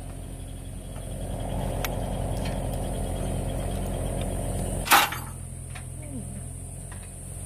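Excavator diesel engine idling steadily, running a little louder for a few seconds in the middle. About five seconds in, one sharp metallic clink as a steel lifting hook is knocked against its shackle while being unhooked.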